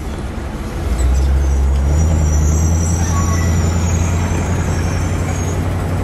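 A 1957 Ford Thunderbird's 312 V8 pulling away, heard from inside the car: a low exhaust drone that gets louder about a second in and then holds steady. Its aftermarket mufflers give little silencing. A faint, thin high whine runs over the middle of it.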